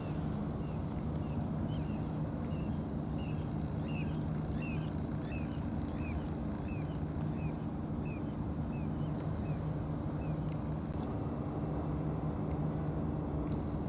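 An engine running steadily with a low, even hum. Over it, a series of short high chirps repeats about twice a second and stops about ten seconds in.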